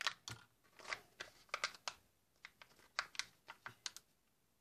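Small clicks and crinkles from the plastic Kinder Joy shell, its foil seal and the toy capsule being handled, irregular and stopping near the end.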